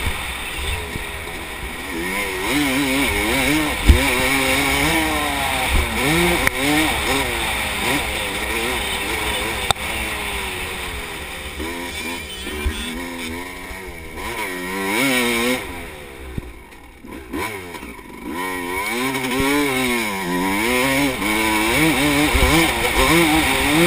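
Dirt bike engine revving up and down as it is ridden round a dirt track, its pitch rising and falling through the throttle and gears. There is a sharp knock about four seconds in, and the engine drops off briefly past the middle before it pulls again.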